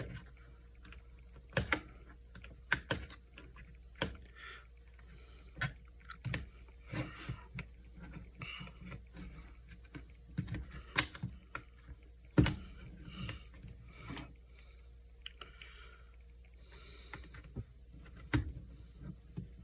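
Irregular sharp plastic clicks, taps and snaps as the plastic shell of a Jumper Bumblebee radio transmitter is pried apart and handled, with the loudest snaps about halfway through and near the end.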